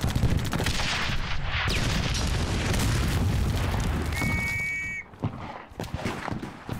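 Battle sound effects: a loud explosion right at the start rolls on as a long, deep rumble for about five seconds, with a brief high whistling tone near the end of it. After that come quieter, scattered gunshots.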